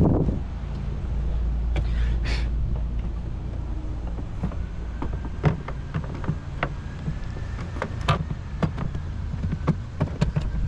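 Scattered light clicks and knocks of a plastic taillight assembly being handled and fitted onto its mounting studs, over a steady low rumble.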